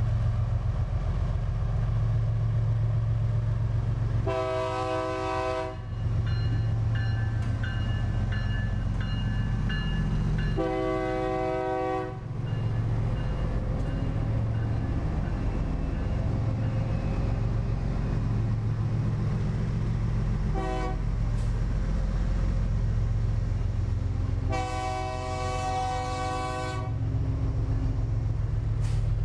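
GE diesel-electric freight locomotives passing close by, their engines running with a heavy steady hum. The lead unit sounds its multi-tone air horn four times: long, long, short, long, the pattern for a level crossing.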